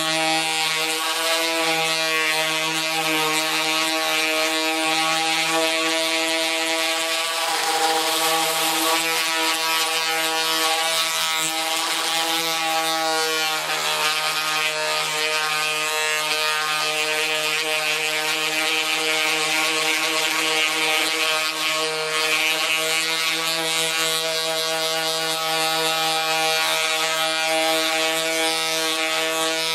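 Corded random orbital sander running steadily while sanding a car's steel roof panel down to bare metal: an even motor hum under the hiss of the abrasive pad on metal. The pitch dips briefly twice, about 8 and 13 seconds in.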